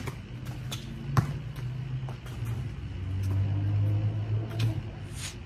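A basketball bouncing on concrete, with the loudest thuds at the very start and about a second in and a few lighter ones after. Under it, a low steady engine hum grows louder past the middle and fades near the end.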